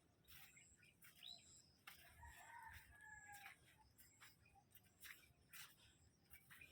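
A faint rooster crowing once, one call lasting about a second and a half, among scattered light clicks.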